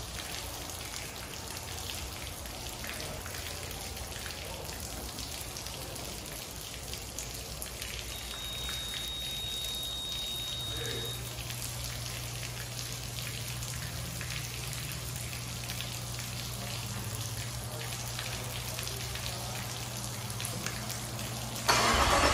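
Water from a hose hooked to the twin Suzuki 350 outboards spattering from their lower units onto a concrete floor, a steady rain-like patter, with a faint low hum from about ten seconds in and a brief thin high tone around the middle. Near the end a much louder engine sound starts as the outboards are started.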